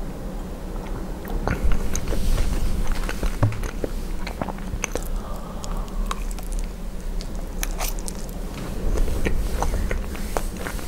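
Close-miked chewing and biting of poutine (fries, cheese curds and gravy), with many short irregular mouth clicks.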